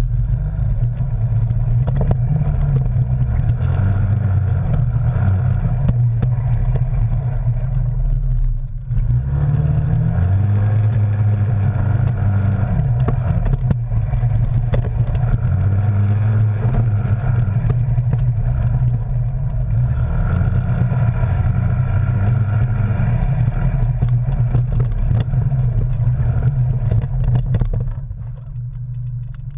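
Arctic Cat Wildcat Sport side-by-side's twin-cylinder engine running under load on a rough trail, heard from the cab, its revs rising and falling again and again with the throttle. It briefly drops off about nine seconds in and quietens near the end.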